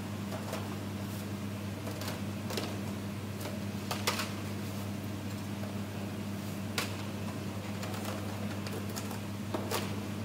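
Charcoal grill crackling and popping under skewered enoki mushrooms, with irregular sharp pops (a few stand out, about four seconds in, near seven seconds and near the end) over a steady low hum.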